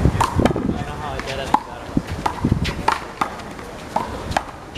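Sharp slaps of a rubber handball, in quick irregular succession, as it is struck by hand and smacks off the wall and the pavement during a one-wall handball rally.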